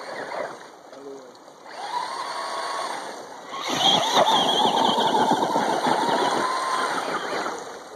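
Radio-controlled monster trucks driving through a shallow creek: a motor whine sets in about two seconds in, then a louder whine with water splashing as a truck charges through close by, fading near the end.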